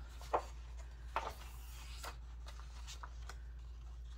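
A page of a thick-paper coloring book being turned by hand: a soft paper rustle with a few light clicks and taps, over a low steady hum.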